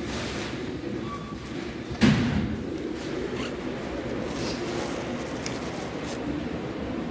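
Steady background noise of a large indoor room, with one sharp thump about two seconds in.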